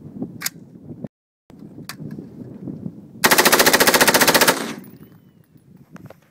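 AR-style carbine firing one rapid burst of automatic fire, a quick even string of shots about three seconds in that lasts just over a second.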